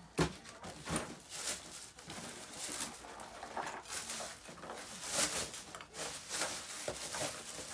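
Rustling, scraping and tapping of packaging being handled as a small box is opened, in a quick irregular run of short noisy strokes.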